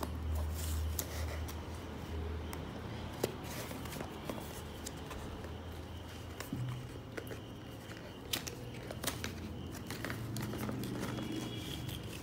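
Cardboard smartphone box being handled and opened: scattered light clicks, taps and crinkles of card and paper as the sleeve is worked off and the inner box slid out, over a low steady hum.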